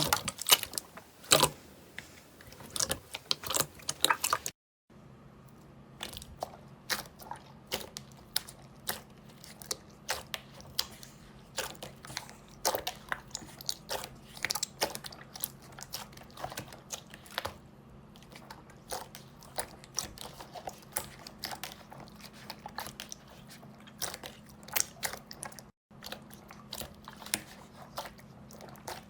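Slime being handled, giving quick, irregular crackling and crunching clicks over a faint steady hum. The sound cuts out briefly about five seconds in and again near the end.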